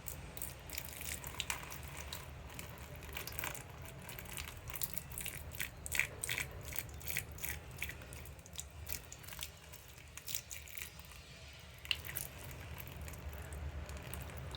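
Irregular soft crackles and clicks, in clusters, over a low steady hum, presented as the sound of a devil's ivy (pothos) plant growing.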